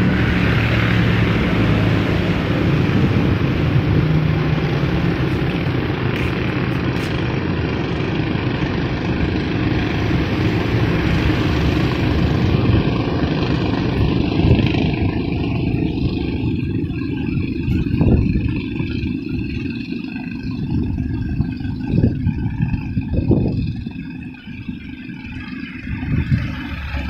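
Wind buffeting the microphone, a dense low rumble with a rushing hiss on top that thins after about fifteen seconds, leaving the rumble and a few sharp gusts.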